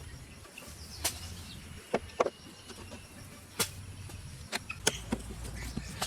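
About seven sharp knocks and clicks, irregularly spaced, over a low steady outdoor background; the loudest pair comes about two seconds in.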